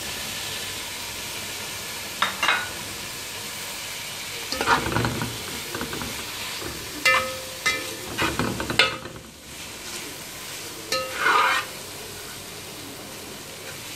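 Vegetables and scrambled egg sizzling as they stir-fry in a metal pot, with a steady frying hiss. A steel spatula stirs and scrapes against the pot in short bursts every few seconds.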